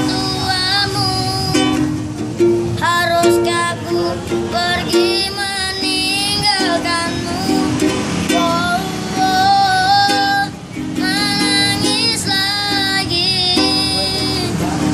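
A child busker singing a slow, plaintive song in a high voice, with wavering held notes, accompanied by a plucked string instrument.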